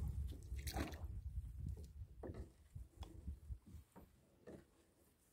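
A fishing net being paid out over the side of an aluminium boat: faint, irregular taps and small knocks of the net and its float line against the hull, fading toward the end.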